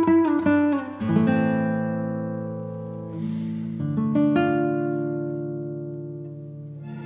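Music on a plucked string instrument: a few quick notes, then chords left to ring and fade slowly, with a new chord struck about four seconds in.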